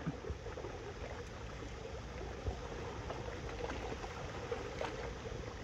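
Sea water lapping and washing softly against shoreline rocks, a steady low wash of moving water.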